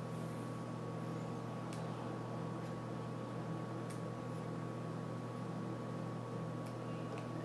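Steady low electrical hum with a thin faint whine above it, and three faint light clicks as small parts are handled on a bare graphics card board.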